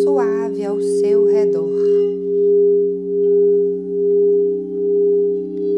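Crystal singing bowls sounding a sustained chord of several steady tones, swelling and fading in a slow pulse a little faster than once a second.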